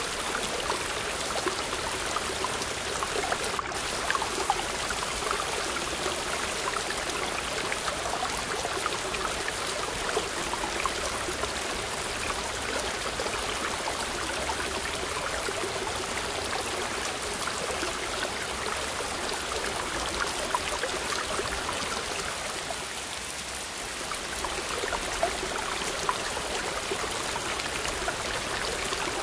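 Mountain stream rushing and splashing over boulders in a small cascade, a steady even sound of white water, briefly a little softer about two-thirds of the way through.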